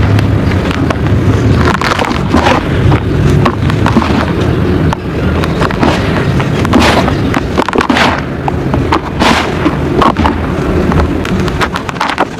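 Red dirt mud and water being mixed into a thick paste: a dense, irregular run of crackles and rough, wet scraping.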